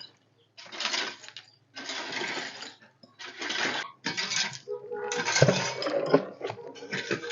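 Repeated scraping and sweeping strokes on a pen floor, about one a second with short pauses between, and a few knocks about halfway through.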